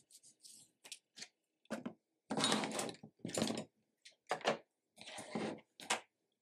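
A bone folder rubbed along a folded paper card to press the crease flat: a series of short dry scraping strokes of paper and tool against the cutting mat, at uneven intervals, one of them longer a little over two seconds in.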